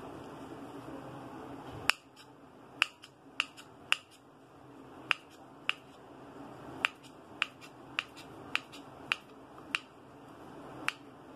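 Kitchen knife slicing a peeled raw banana into rounds on a wooden cutting board, the blade knocking sharply on the board with each cut, about fifteen times at an uneven pace starting about two seconds in.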